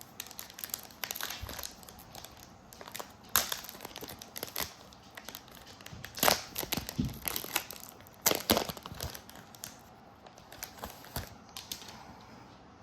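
A foil trading-card pack wrapper being torn open and crinkled by hand: a run of sharp crackles, with the loudest crunches about three and a half, six and eight and a half seconds in, thinning out near the end.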